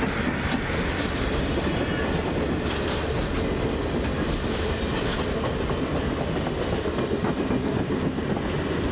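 Railway passenger coaches rolling past: a steady rumble of steel wheels on the rails with occasional faint clicks.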